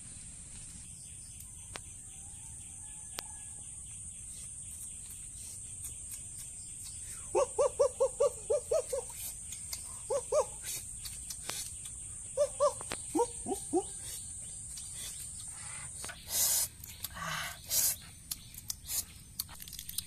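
Steady high insect drone of the forest, with an animal giving bursts of short, quickly repeated calls through the middle. Scattered sharp clicks run throughout, and a few louder rustling bursts come near the end.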